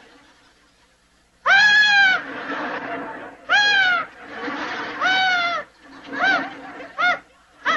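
A man's high falsetto voice giving five drawn-out wailing cries, beginning about a second and a half in: three long ones, then two short ones.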